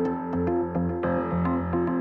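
Instrumental background music on electronic keyboard, with notes changing in steps and light ticking percussion.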